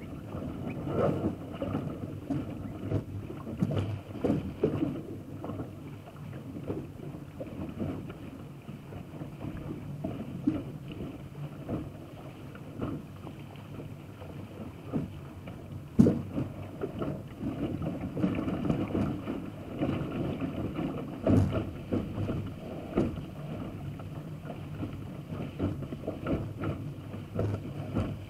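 Water rushing and splashing along the hull of a Lightning sailing dinghy under way, heard close from the foredeck, with wind on the microphone. A steady wash broken by small knocks, with two sharp louder knocks about halfway through and again some five seconds later.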